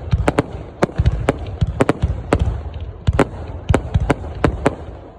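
Fireworks going off: a quick, irregular string of sharp bangs, several a second, over a steady low rumble.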